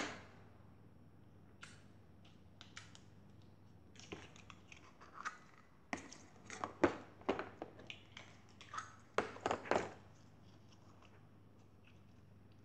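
Clear jelly slime being squeezed and worked in the hands, giving short wet crackles and squishes in several clusters. It stops about ten seconds in.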